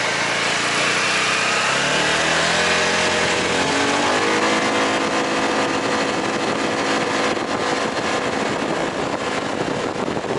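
Polaris side-by-side UTV engine pulling away, its pitch climbing over the first four seconds or so, then running at a steady speed.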